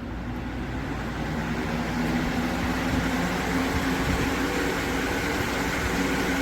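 Hurricane 20-inch box fan running: a steady rush of air with a low motor hum, growing a little louder over the first two seconds.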